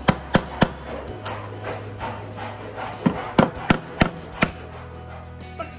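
A hammer taps a pine sliver into an old screw hole in a wooden window jamb. The sliver fills the hole so the hinge screw will get a secure anchor. There are three quick taps at the start, a lighter one about a second in, then a run of five taps about three seconds in.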